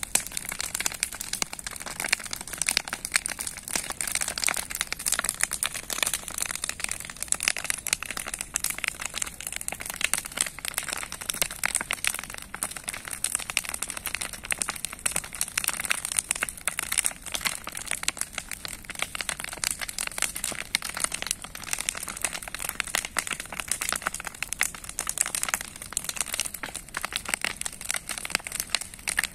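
Bonfire of old scrap wooden boards burning, the wood giving a dense, steady crackle of many small rapid pops.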